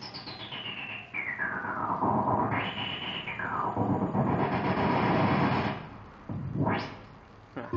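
Korg Kaossilator Pro synthesizer played from its touchpad, making a noisy swept sound. It falls in pitch over the first two seconds, jumps up and falls again around three seconds in, and near the end a quick rising sweep goes up.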